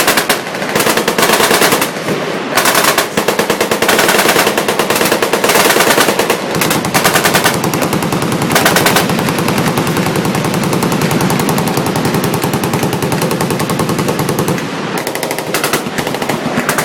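Several machine guns firing at once, long overlapping automatic bursts that run together into near-continuous gunfire, easing a little near the end.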